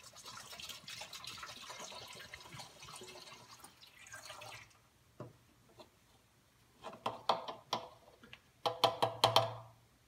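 Coolant pouring from a jug through a plastic funnel into a car's coolant expansion tank, a steady trickling hiss that stops after about four and a half seconds. Near the end, a quick run of short knocks as the funnel and jug are handled.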